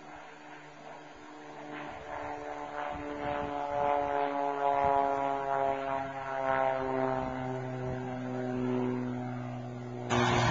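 Cessna AgTruck crop-duster's six-cylinder piston engine and propeller growing louder as it flies past low, its pitch falling steadily as it goes by. Near the end a sudden gust of wind hits the microphone.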